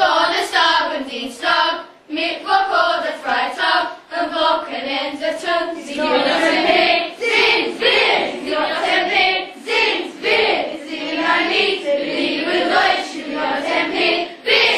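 A group of children singing together in unison, the voices moving in pitch with short breaks between phrases and holding longer notes in the second half.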